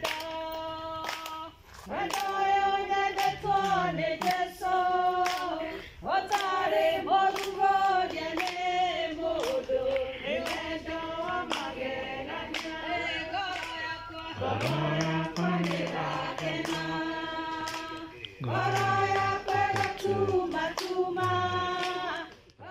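A group of women singing a song together in chorus, with hand claps.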